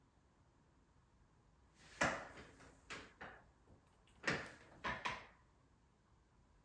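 Knocks and rattles of objects being handled, in two short clusters about two seconds apart, each beginning with its loudest knock.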